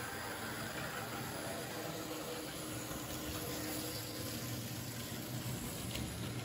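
Märklin H0 model trains running on the layout: a steady hum from the locomotive motors with the rumble of wheels rolling over the track.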